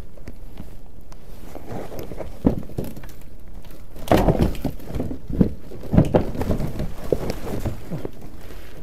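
Scraping and rubbing of clothes and body against a rough stucco wall as a person climbs along it, picked up close on a body-worn camera over a steady low rumble. From about four seconds in come several sharp knocks and scrapes as he moves past pipes and roofing debris.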